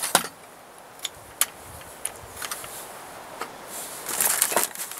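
Small clicks and knocks of an MX-80 pistol crossbow's plastic and metal parts being handled and fitted together during assembly, scattered irregularly, with a brief rustling patch near the end.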